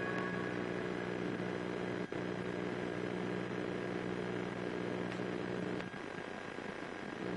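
Steady hum and hiss of a tour helicopter's headset intercom feed, with the helicopter's drone coming through it. The low hum thins out briefly near the end.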